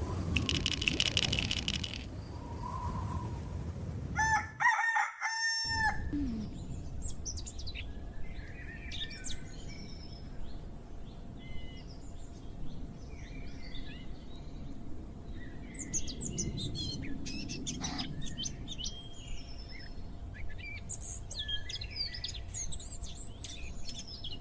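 Night-to-dawn ambience: a short cricket trill near the start, then a rooster crows once about four seconds in, followed by many small birds chirping over a low steady background hum.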